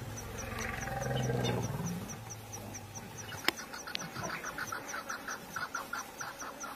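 A deep, drawn-out call from a large wild animal lasting about three seconds, swelling and then fading away. A faint high insect ticking runs about three times a second throughout, and short calls repeat quickly through the second half.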